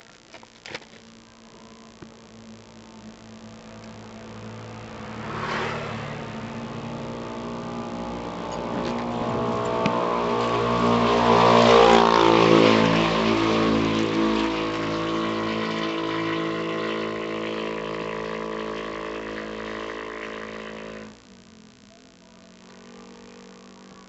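A motor vehicle's engine running close by, its sound building over several seconds to a peak, easing off, then cutting out abruptly near the end. A few light clicks come at the start.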